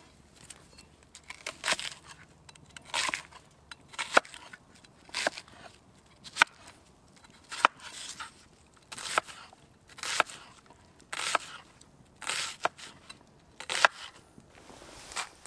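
Cleaver slicing through a red onion on a wooden chopping board: a crisp cut ending in a knock on the board, about once a second.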